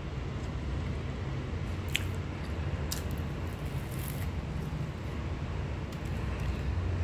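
Steady low rumble of background noise, with a few brief, sharp crackles about two, three, four and six seconds in.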